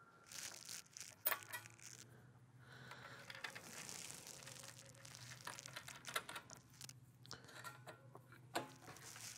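Faint, scattered clicks and light metal handling noises as a saw blade is seated on a circular saw's arbor and the arbor bolt is tightened by hand.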